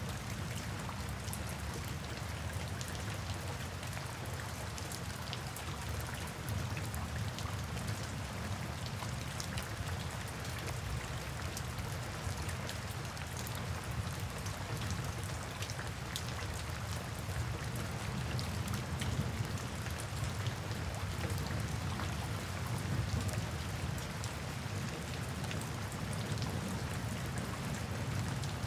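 Steady rain falling, with many separate drops ticking over a low, even rumble.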